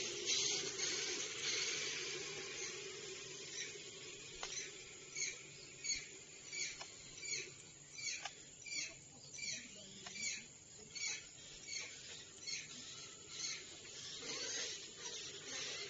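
A small animal's repeated high, squeaky chirping call, about three chirps every two seconds for several seconds through the middle, over a faint low hum.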